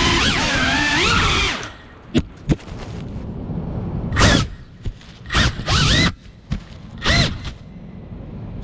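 FPV quadcopter's brushless motors whining at high throttle, cut back suddenly after about a second and a half, then punched in about six short bursts whose pitch sweeps up and down as the drone dives and flips through gaps in the trees.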